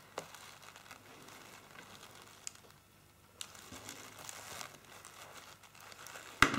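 Soft crinkling and rustling of a dried orange slice being handled and pressed onto a wreath with hot glue, with a few faint clicks and one sharp knock near the end.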